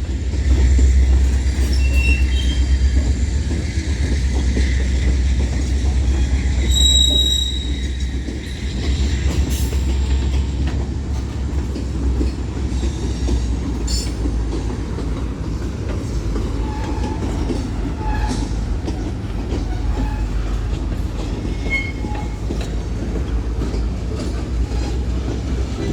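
Cars of a manifest freight train rolling past: a steady low rumble with wheel clacks over the rail joints and a few brief, high wheel squeals.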